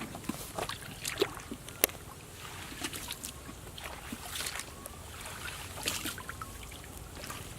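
Shallow water splashing and sloshing, with scattered small knocks and clicks as fish and the trap are handled in a flooded paddy field.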